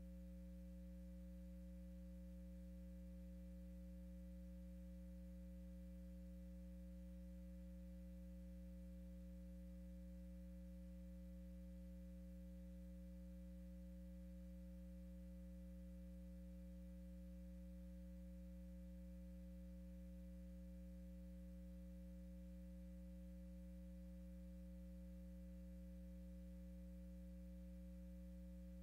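Faint, steady electrical hum, a low buzz with a few higher overtones that never changes: mains hum in the audio feed.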